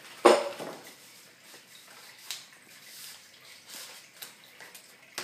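An Australian Shepherd and a Chihuahua play-fighting on a tiled floor under a table. There is one loud, sudden pitched sound about a quarter second in that fades within half a second, then light scuffling and scattered clicks.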